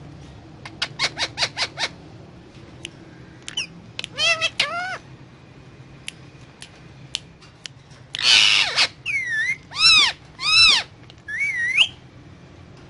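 Indian ringneck parakeet calling in short squawks that rise and fall in pitch, with a quick run of about seven clicks near the start and a harsh, noisy screech about eight seconds in.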